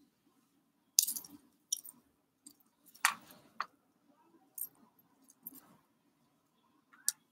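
Handling sounds of a flat iron being worked through hair, with the rings and metal bracelets on the hand holding it: about eight scattered sharp clicks and clinks, the loudest about a second in and about three seconds in, over a faint low hum.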